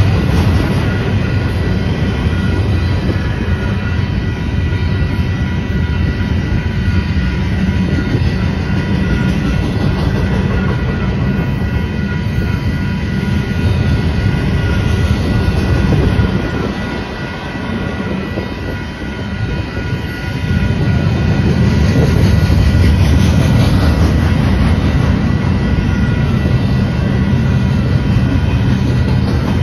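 Double-stack intermodal freight train's well cars rolling through a grade crossing: a steady rumble and clatter of wheels on the rails. It dips in loudness for a few seconds a little past the middle.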